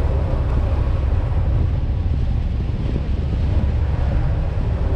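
Boat engine running steadily with a low rumble as the vessel motors along, with wind noise on the microphone.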